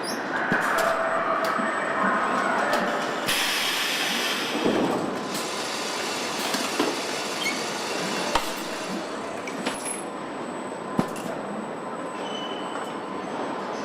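Car assembly-line machinery running: a steady mechanical din with scattered clanks and knocks, and a burst of hiss about three seconds in.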